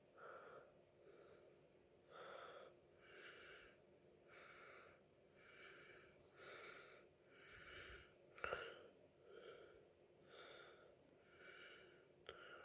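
LG T370 mobile phone ringtone playing faintly: soft pitched notes repeating about once a second. A sharp click about eight and a half seconds in is the loudest moment.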